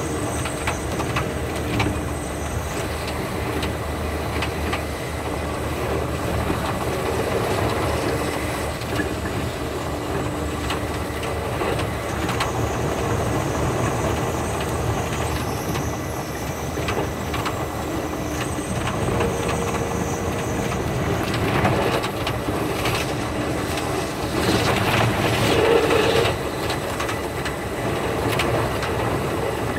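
Running noise inside the Thunderbird electric express train: a steady rumble with rail-joint clicks. The recording is sped up 5.5 times, so the clicks come thick and fast.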